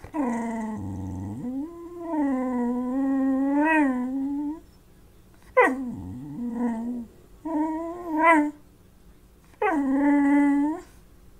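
A dog making long, wavering whine-howls with a low growl mixed in about a second in. Then comes a sharp falling yelp near the middle, two shorter whines and one more whine-howl near the end. These are begging vocalizations aimed at food.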